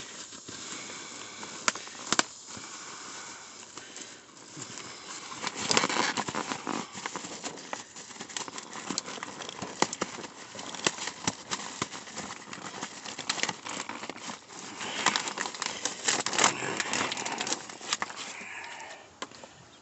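Black plastic garbage bags crinkling and rustling as gloved hands dig through them, an irregular crackle with louder spells about six seconds in and again around fifteen seconds in.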